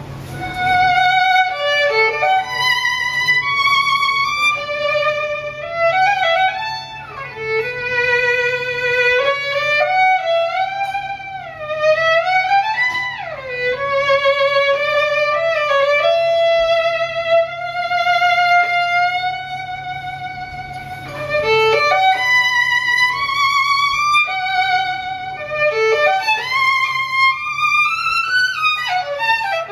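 Jazz violin playing a melody in phrases, with slides between notes and vibrato on the held notes.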